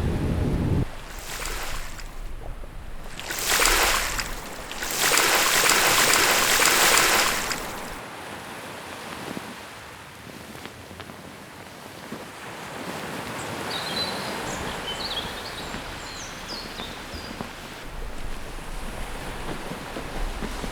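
Foley ocean-wave sounds: three swells of rushing, crashing water, the last the longest, then a quieter wash of water with a few short high chirps.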